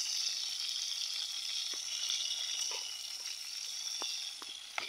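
Whole fish frying in a pan of hot oil: a steady, high sizzle, with a few faint ticks.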